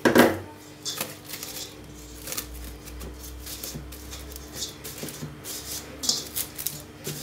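Plastic cling film crinkling and rustling in short bursts as hands press it around the rim of a stainless steel bowl, with a sharp knock from the bowl at the very start.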